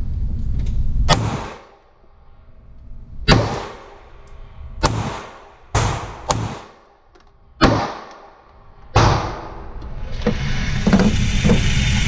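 Springfield Armory Hellcat 9mm micro-compact pistol fired in a slow string of about seven sharp shots, roughly a second apart, each with a short echo off the indoor range. From about ten seconds in there is a steady mechanical whir as the target carrier brings the paper target back.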